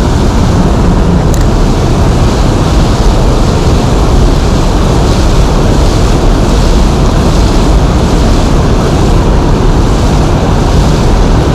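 Loud, steady rushing of a river's current, heaviest in the low end, with no breaks or gusts.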